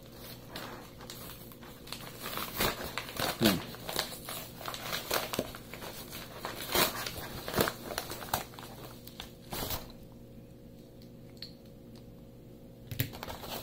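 Manila padded envelope being opened and handled, crinkling and crackling in irregular bursts, with some tearing. It goes quieter about ten seconds in, with a single click near the end.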